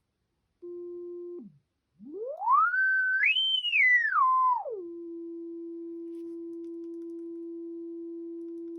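Pure electronic tone from a smartphone frequency-generator app. A low steady tone sounds briefly and slides down, then after a pause the pitch sweeps up to a high whistle, steps back down and settles into a steady low hum.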